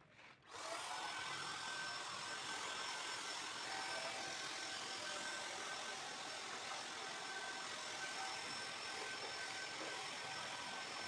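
A small motor-driven power tool starts about half a second in and runs steadily with a constant whine.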